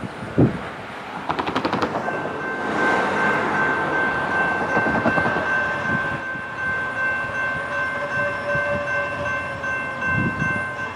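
Locomotive air horn on a Norfolk Southern GE D9-40CW diesel, sounding one long, steady multi-note chord that starts about two seconds in and holds to the end. Just before it comes a short thump and a brief rapid rattle.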